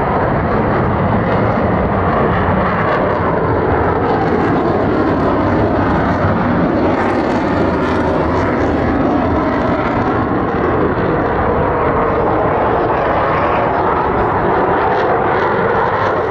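Twin turbofan engines of a Blue Angels F/A-18 Super Hornet on a display pass: a loud, steady jet roar. In the last few seconds the tone of the roar slowly sweeps as the jet passes low.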